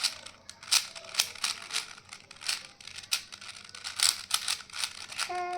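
Plastic clicks and clacks of a 4x4 Rubik's cube as its layers are turned quickly by hand while pairing edges, about a dozen irregular clicks.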